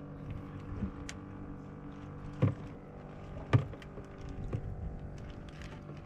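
A boat's engine idling steadily, with a few sharp knocks, the loudest two about two and a half and three and a half seconds in.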